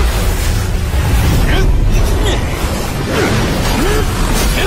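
Animated battle sound effects: a dense, continuous rumble of energy blasts and impacts, with short wordless shouts from the fighters and music underneath.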